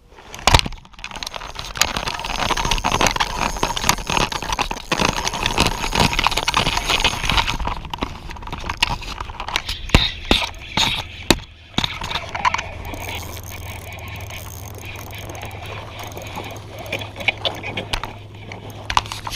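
A bass being fought up to the side of a kayak: loud rustling and rattling with many sharp clicks and knocks from the rod, reel and gear on the hull. After about twelve seconds it settles to a steadier low hum with scattered ticks.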